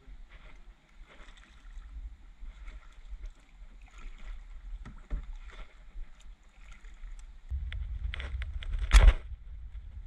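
Kayak being paddled through shallow water: the paddle dipping and dripping, with light knocks on the plastic hull. About nine seconds in comes one sharp, loud knock, and wind rumbles on the microphone over the last few seconds.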